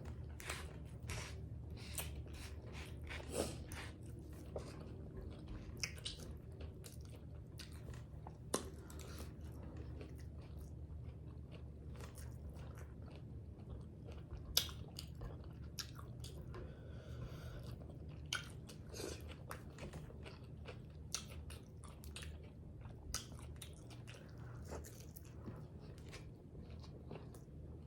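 Close-up mouth sounds of a person chewing and biting into tacos: scattered crunches and wet clicks, over a steady low hum.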